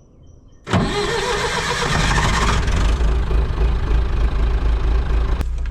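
Caterpillar 205LC excavator's diesel engine starting abruptly about a second in and then running loudly, its low rumble building about two seconds in and easing a little near the end.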